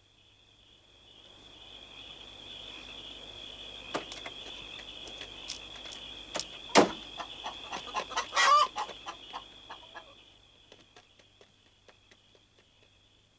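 Hens clucking in a farmyard: a run of short clucks that grows busier toward the middle, with one sharp knock about seven seconds in.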